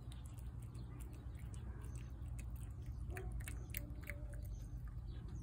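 A cat chewing wet food from a plate: a steady run of quick, irregular wet clicks.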